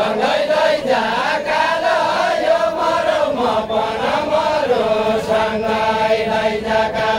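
A group of men singing a Deuda folk verse together in unison: a drawn-out, chant-like melody with long held notes that glide up and down.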